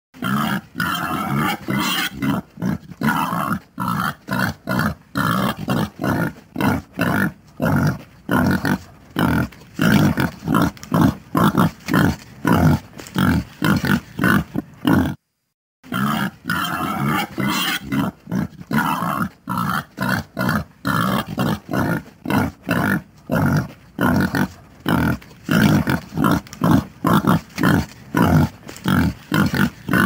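Wild boar grunting in a rapid, steady run of short grunts, about two to three a second, breaking off briefly halfway through.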